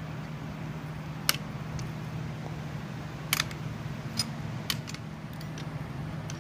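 A few sharp, irregular metal clicks from a wrench and Allen key working the 17 mm nut on a coilover strut shaft, over a steady low hum.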